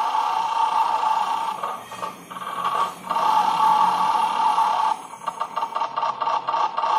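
Electronic roulette arcade machine sounding steady two-note electronic tones while its win meter is counted off into credits, with two brief breaks. From about five seconds in it switches to a fast run of electronic ticks as the lights start running round the number wheel.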